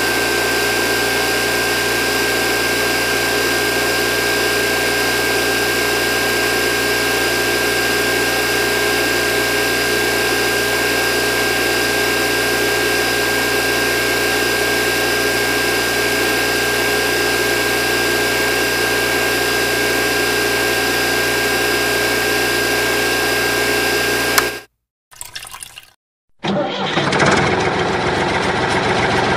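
Small DC motor running steadily with a high whine, turning plastic pulleys through rubber-band belts. It stops abruptly near the end, and a second small DC motor, on a toy tractor, then starts and runs with a noisier sound.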